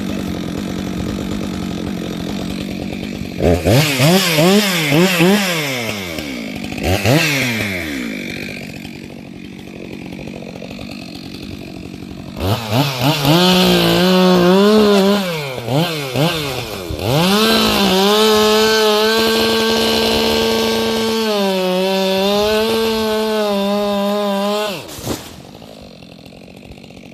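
Two-stroke chainsaw idling, then revved in several rising and falling blips. About halfway through it is held at high revs for most of ten seconds with a brief dip in pitch, and it stops near the end.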